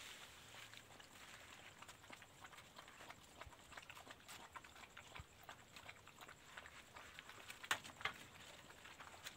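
Dogs and puppies lapping from a shallow foam tray: a steady patter of faint, quick wet clicks, with two sharper clicks a little before the end.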